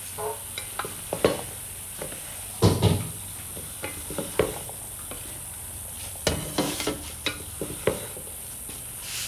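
Curry of chana (chickpeas) and aloo (potatoes) being stirred in a pot: irregular scrapes and knocks of the utensil over a steady frying sizzle, strongest about three seconds in.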